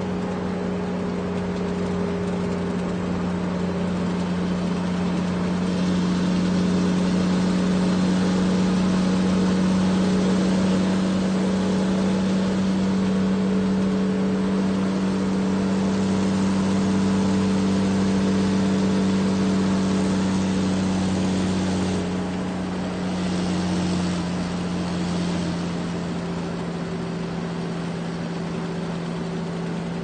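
A large truck's engine running as it drives, a steady low hum with road noise. The engine note eases a little about two-thirds of the way through, with a couple of brief swells just after.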